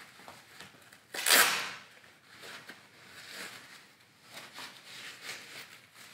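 Glove fabric rustling as a Reusch ski glove is pulled on over a thin touchscreen inner glove, with one louder, sharp rustle a little over a second in and fainter handling rustles after it.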